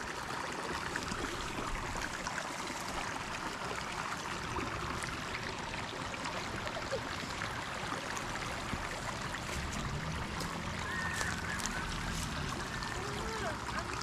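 Creek water running steadily, an even continuous rush.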